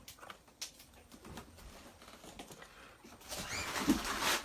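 Scattered light clicks and rustling of a package of green beans being handled, growing into a louder scratchy rustle about three seconds in.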